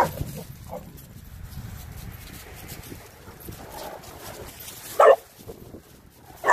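Dogs barking in rough play: a loud single bark at the start and a faint one just after, then single sharp barks about five seconds in and again at the end.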